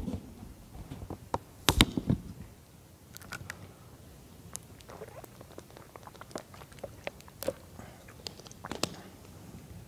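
Plastic water bottle crinkling and clicking as it is opened, drunk from and handled close to a handheld microphone. The scattered crackles are loudest about two seconds in.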